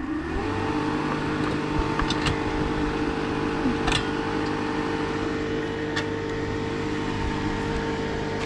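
A motor starts up, its pitch rising for about half a second, then runs steadily with a hum and a few sharp clicks.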